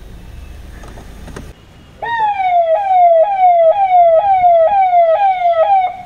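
Ahuja electronic police siren on a Mahindra Bolero sounding a repeating pattern: each cycle jumps up in pitch and slides down, about two a second. It starts about two seconds in and stops just before the end. Before it, a low steady hum cuts out.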